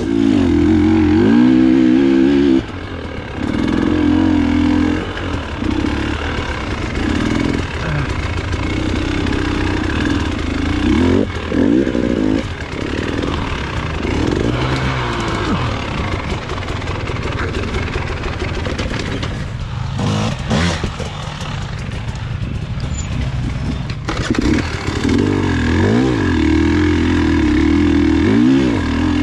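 KTM 300 EXC TPI two-stroke single-cylinder dirt bike engine running under constant throttle changes, revving up and falling back repeatedly as it picks its way over technical trail, with a brief easing off about two-thirds through.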